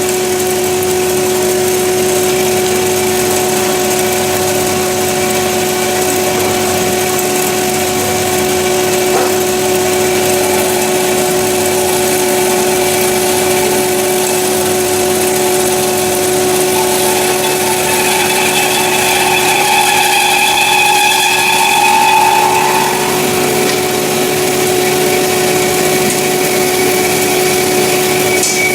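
CORMAK S-200R semi-automatic metal band saw running with a steady hum, a higher-pitched whine joining for a few seconds past the middle.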